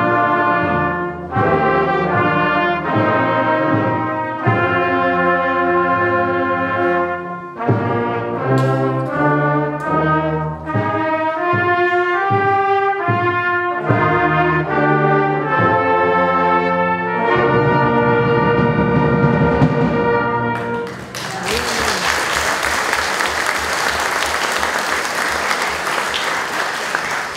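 Youth brass band playing, with cornets and trombones, ending on a held chord about twenty seconds in. Audience applause follows for the last several seconds.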